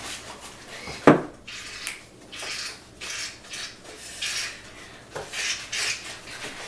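A utensil stirring and scraping in a mixing bowl, with repeated swishes about once a second and one sharp clack against the bowl about a second in.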